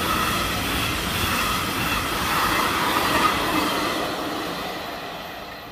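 Freight train of container flat wagons rolling past at speed: a steady rolling rush of wheels on rails with a high ringing note, fading over the last couple of seconds as the end of the train goes by.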